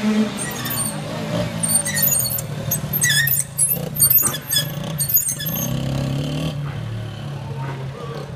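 Quad bike (ATV) engine running steadily with a low hum that swells slightly about two-thirds of the way through, mixed with scattered short high squeaks.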